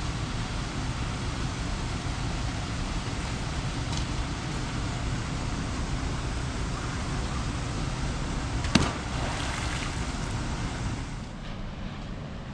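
Steady rush of a shallow river. A single sharp knock comes about nine seconds in, and the rushing drops a little near the end.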